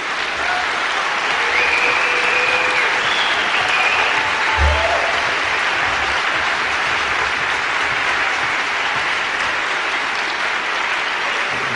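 Audience applauding steadily in a long round that eases slightly toward the end.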